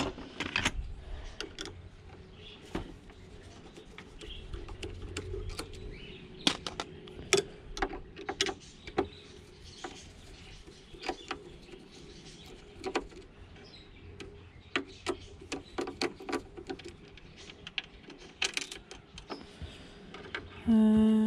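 Irregular clicks and knocks of a Singer sewing machine's plastic casing and metal mechanism being handled, pried at and worked with a screwdriver, as the clipped-in casing is taken off.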